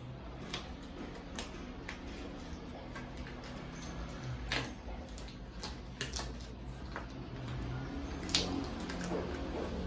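Scattered light clicks and taps of small items being handled and set down, at irregular intervals, with two sharper knocks about halfway through and near the end, over a low steady hum.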